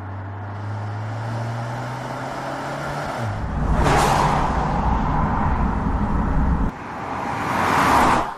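Audi A5 Sportback g-tron's 2.0 TFSI four-cylinder running on the road. First a steady engine hum slowly rising in pitch, then the car passing close with a rush of tyre and wind noise about four seconds in. A second pass-by swells near the end and cuts off abruptly.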